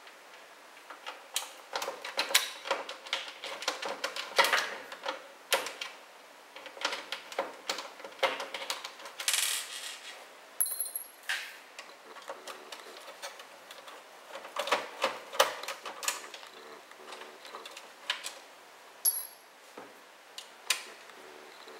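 Screwdriver working the screws out of a boombox's cassette tape mechanism, with irregular clicks and ticks of small screws and plastic parts being handled. There is a short scrape about nine seconds in.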